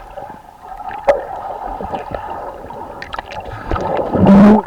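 Shallow river water gurgling and splashing around people in it, with scattered small knocks and a brief, very loud burst near the end.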